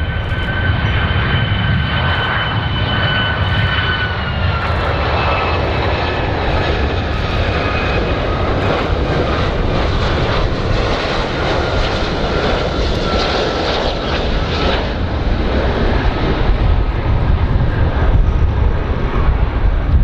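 Airplane engines running with a steady low rumble and a high whine. The whine drops in pitch about four seconds in and then keeps falling slowly.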